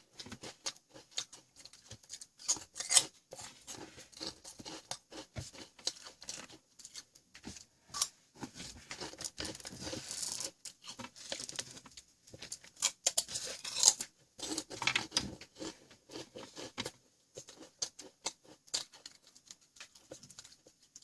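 Crunchy Ogamja potato snacks being eaten close to the microphone: irregular crunching, crackling and clicking.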